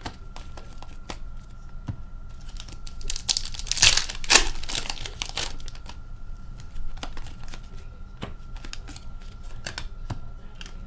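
An Upper Deck hockey card pack wrapper crinkling and tearing open, loudest about four seconds in, with short clicks of cards being handled and flicked through.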